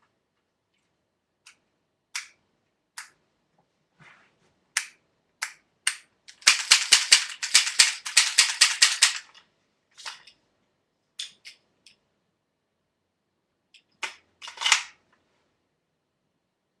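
Airsoft H&K USP pistol firing: single sharp shots a second or so apart, then a rapid string of about sixteen shots at roughly six a second, then a few more single shots.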